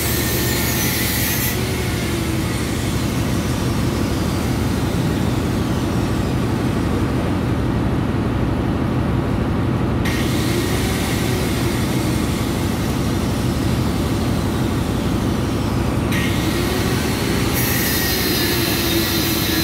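Steady, loud drone of a ship's engine-room machinery: an even rumble with a constant low hum and a steady higher tone that doesn't change.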